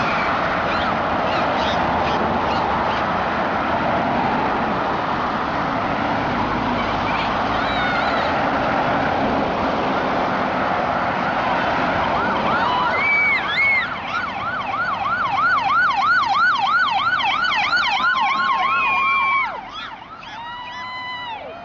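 Steady road noise from passing vehicles. About twelve seconds in, a police siren starts yelping, its pitch sweeping quickly up and down about three to four times a second with brief held tones, then cuts off. Another siren tone sounds near the end.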